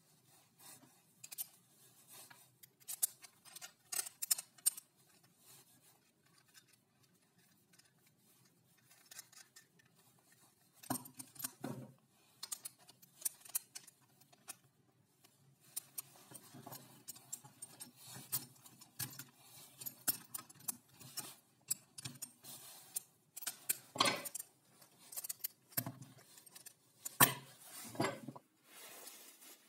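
Small metal hardware (bolts, nuts, washers and steel links) clicking and clinking in irregular bursts as it is fitted by hand to a wooden clamp jaw, with a few louder knocks in the second half.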